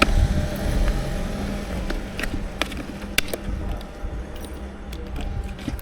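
Steady low rumbling background noise with a few sharp clicks and knocks, typical of small objects being handled.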